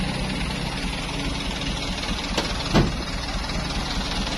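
A vehicle engine idling steadily, with a faint tick and then a louder sharp knock about two and a half seconds in.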